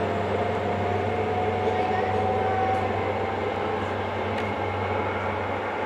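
HST (Class 43) power car's diesel engine running as the train moves away: a steady low drone with a thin whistling tone that rises slowly in pitch.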